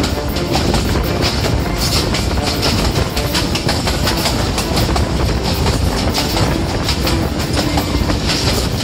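Pakistan Railways passenger train moving along the line, heard from inside a carriage: a steady running noise of wheels on the rails, with rapid clicks and rattles.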